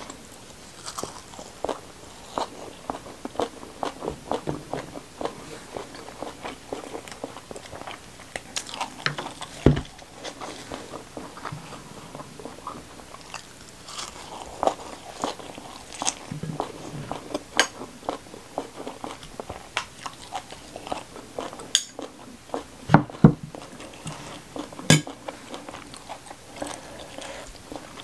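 Close-miked mouth sounds of eating fried pomfret with rice and raw vegetables: steady chewing with many short, crisp crunches, and a few louder sharp crunches about ten seconds in and again near the end.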